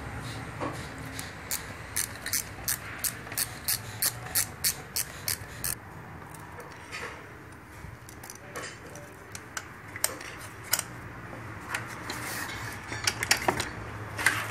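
Ratchet wrench clicking at about three clicks a second, then scattered metal clinks of tools and fasteners on the engine, with a quick cluster of clinks near the end.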